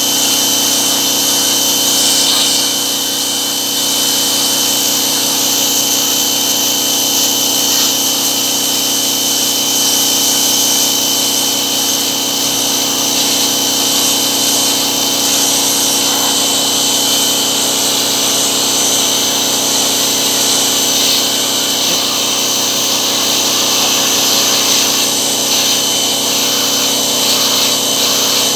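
Pressure washer running steadily: its motor and pump give a constant hum, under the hiss of a high-pressure water jet spraying through the fins of a radiator core.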